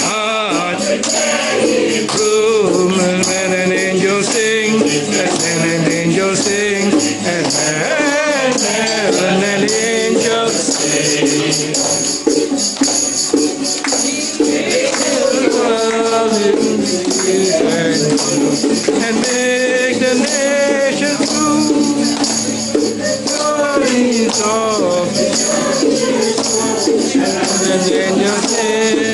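A group of Christmas carollers singing a carol together, with a tambourine jingling along in rhythm.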